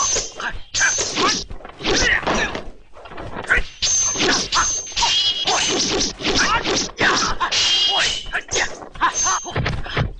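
Kung fu film fight sound effects: a rapid, unbroken run of dubbed whacks and blows with swishes. Several sword clashes ring on with a short, high metallic tone.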